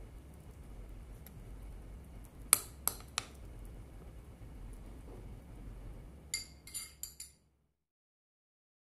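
A metal spoon clinking against a glass baking dish while scooping out soft rice cake. There are three sharp clinks about two and a half seconds in, then a quick cluster of ringing clinks near the end.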